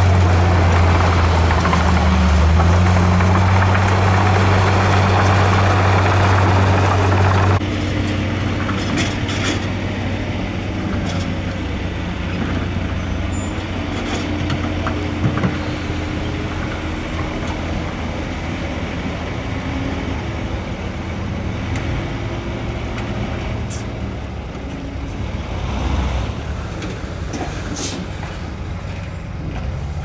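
Heavy diesel earthmoving machinery running: a loud, steady low engine drone that drops off abruptly about seven seconds in to a quieter engine hum, with a few scattered knocks.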